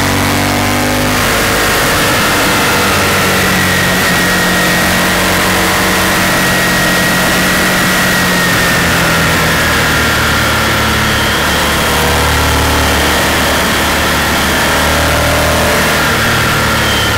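Honda Varadero's V-twin engine running at mid revs while riding through bends, with steady wind rush over the helmet.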